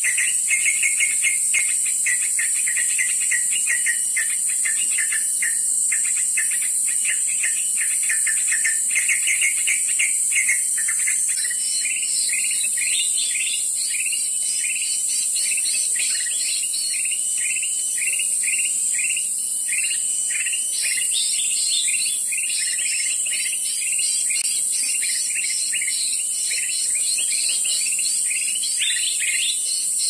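Forest insects keep up a steady high-pitched drone while small birds chirp over it: a fast, dense trill for the first ten seconds or so, then repeated short chirps that sweep downward.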